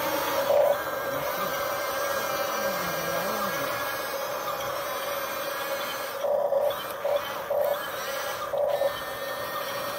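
Electric motors and plastic gearboxes of a 1:12-scale Huina RC excavator whining steadily as it drives on its tracks. Several short, louder whirring bursts come in the second half.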